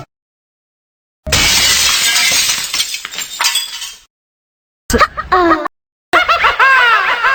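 Glass shattering: a loud, noisy crash that trails off over about three seconds. After a short silence come two brief clips of a quickly repeated tone that swoops up and down in pitch.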